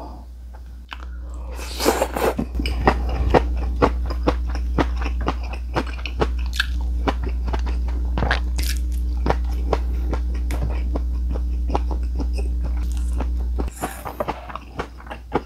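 Close-miked chewing of a mouthful of crunchy seasoned bean sprouts: a rapid run of crisp crunches. A steady low hum runs underneath and cuts off suddenly near the end.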